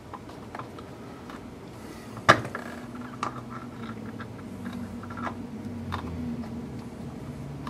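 A hand screwdriver driving a 12 mm screw into the plastic cage of an Axial Yeti RC kit: small scattered clicks and ticks of metal on plastic, with one sharp click a little over two seconds in.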